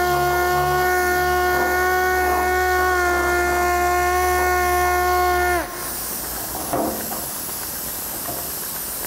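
Air-powered random orbital sander running with a steady high whine while dry-sanding car clearcoat with a P1500 finishing disc. About five and a half seconds in it is switched off and the whine falls away quickly, leaving a softer steady hiss as a cloth wipes the panel.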